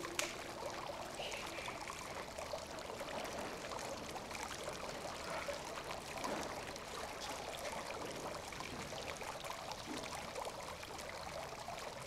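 Water trickling and splashing steadily in a courtyard fountain.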